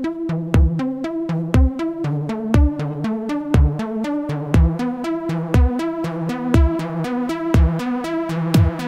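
Electronic background music with a steady drum-machine beat: a deep kick about once a second under quick ticking percussion and sustained synth chords.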